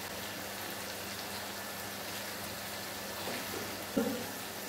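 Onion, tomato and spice-powder masala sizzling steadily in hot oil in a steel wok. A short click sounds near the end.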